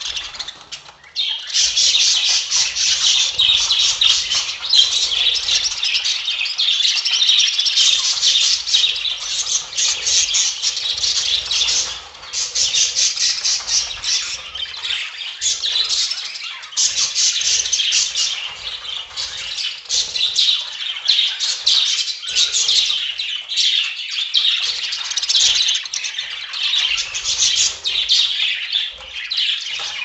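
A flock of budgerigars chattering and chirping together, a dense stream of many overlapping high calls, dipping briefly about a second in.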